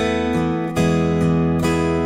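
Acoustic guitar strumming chords, a new stroke about every 0.8 seconds.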